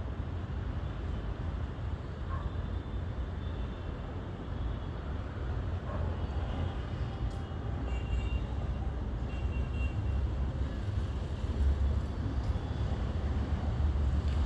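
Low, fluctuating rumbling noise with no speech, growing a little louder in the second half.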